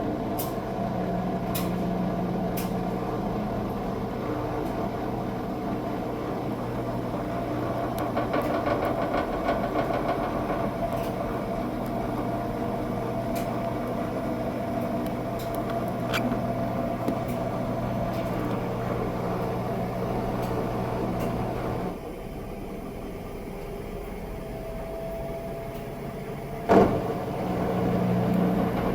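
Washing machine motor running in its final spin, a steady hum with light ticks and rattles. About three-quarters of the way in the hum drops away and the machine goes quieter, then a single sharp clunk and the hum starts up again.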